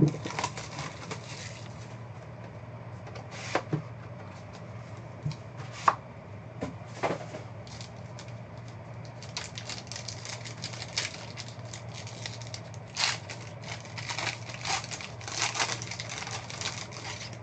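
Foil trading-card pack being torn open and crinkled in the hands, with the cards handled and slid against each other. A few separate clicks come in the first half, then dense crinkling from about ten seconds in, over a steady low hum.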